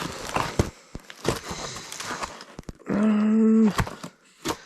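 Packaging and a cardboard box being handled, with rustling and light taps. About three seconds in comes a loud, steady, held vocal hum lasting about a second.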